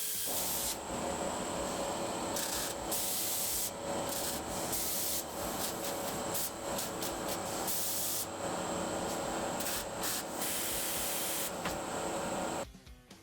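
Angle grinder with a sanding or flap disc working on steel sheet, grinding back the welds on a repair section. The motor whine holds steady while the rasp comes and goes as the disc is pressed on and lifted. It stops shortly before the end.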